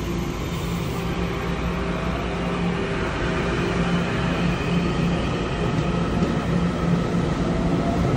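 Taiwan Railway electric commuter train pulling away from the platform: a steady electric hum and running noise, with a whine starting to rise in pitch near the end as it gathers speed.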